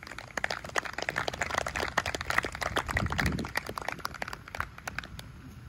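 Applause from a small audience: many separate hand claps that thin out and stop shortly before the end.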